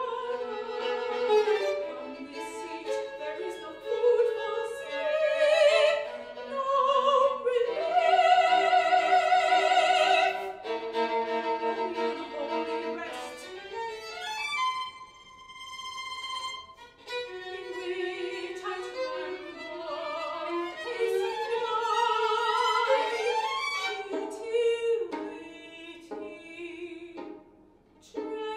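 Contemporary classical duo for violin and voice: violin playing with vibrato together with a female operatic voice, with a louder held passage about a third of the way in and a sparse, quiet stretch around the middle.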